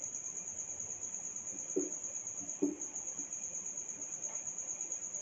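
A cricket chirping, a steady high trill that pulses rapidly, with two brief low sounds a little under two seconds in and about a second later.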